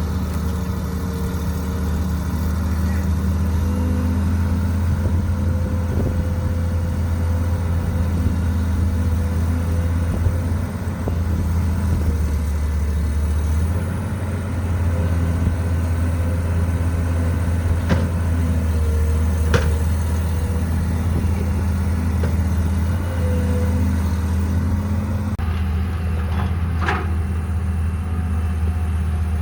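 Caterpillar 312B excavator's diesel engine running steadily, with a few short sharp clicks or knocks in the second half.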